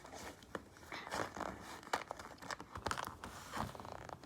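Small plastic items and a bag being handled: irregular light clicks, scrapes and rustling as things are taken out.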